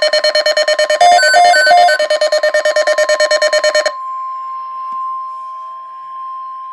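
Weather radio alert: a receiver's rapid pulsing alarm beeps over a steady single tone (the NOAA Weather Radio 1050 Hz warning alarm tone), with three short higher beeps about a second in. The pulsing stops about four seconds in, leaving the steady tone alone.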